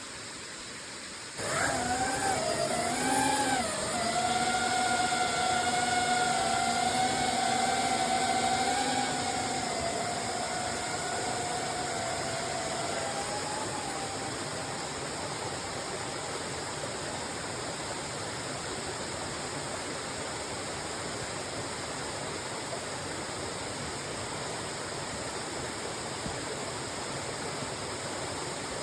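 Quadcopter drone's propellers starting suddenly about a second in and humming, wavering in pitch for a couple of seconds, then a steady hum that fades out over about ten seconds as the drone moves off. A waterfall rushes steadily underneath.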